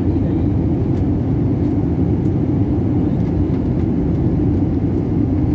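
Steady, low rumble of an airliner's cabin in flight: engine and airflow noise heard from a window seat.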